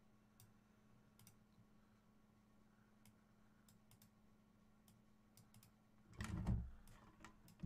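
Faint, scattered computer clicks over quiet room tone with a low steady hum, and a louder dull bump about six seconds in.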